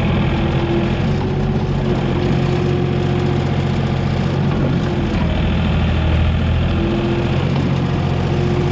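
Komatsu PC28 mini excavator's diesel engine running steadily, with a steady whine that drops out for a moment past the middle.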